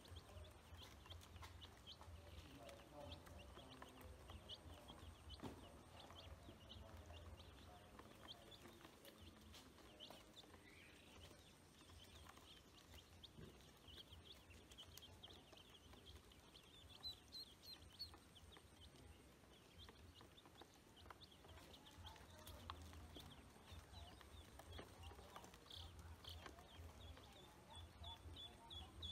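Faint, constant high peeping of chicks and ducklings, many short cheeps overlapping throughout.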